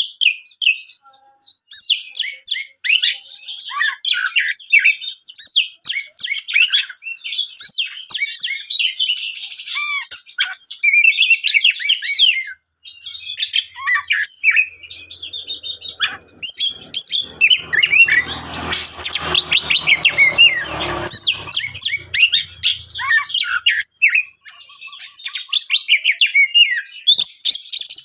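Oriental magpie-robin (kacer) singing a fierce, rapid, varied song of chirps, whistles and harsh notes, with a short break about halfway. About two-thirds of the way through, a rustling noise with a low hum swells and fades under the song.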